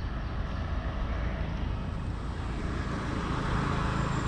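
A motor vehicle going by: a steady low engine and road rumble that grows gradually louder.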